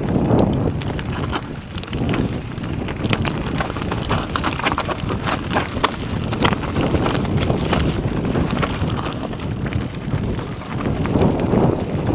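Mountain bike rattling and clattering over a rough, rocky dirt trail, with many quick sharp knocks that are thickest through the middle. Wind rumbles on the camera microphone throughout.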